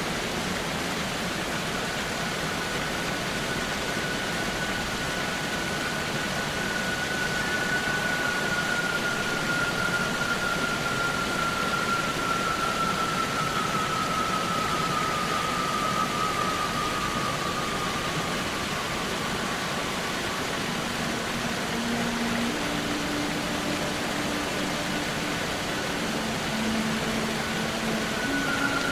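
Steady rushing of a waterfall in a cave, over soft held notes of the film score: a faint high tone that slowly falls in pitch through the first half, then low held notes near the end.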